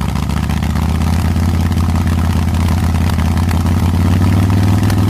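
Motorcycle engine running steadily at a low, even pitch, growing slightly louder toward the end.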